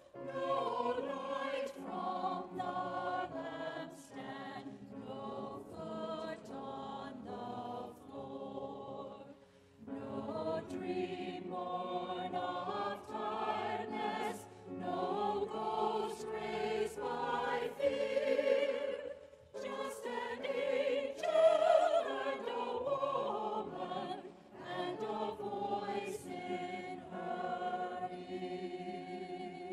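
Mixed church choir singing a carol, in phrases with short breaks about ten and twenty seconds in.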